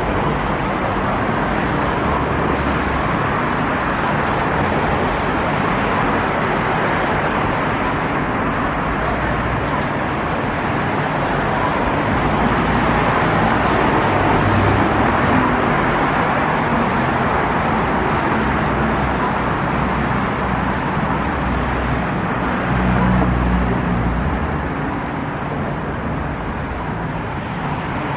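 Steady road traffic noise from passing cars, with a louder low rumble of a vehicle going by about three quarters of the way through.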